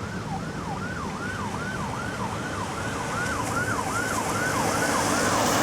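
Vehicle siren on a JPJ road-enforcement vehicle sounding a fast yelp: a falling tone that repeats about three times a second and grows slightly louder as the vehicle comes on.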